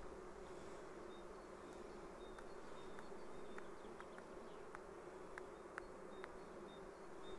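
Honeybees buzzing at the hive entrance, a steady faint hum of foragers flying in and out, with a few light ticks through the middle and later part.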